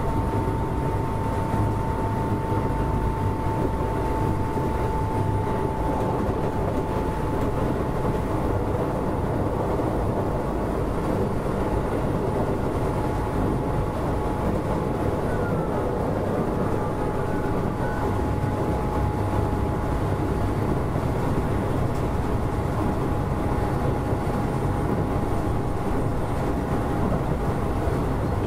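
Keisei 3400 series electric train running along the line: steady rumble of wheels on track, with a steady whine whose pitch sinks slowly.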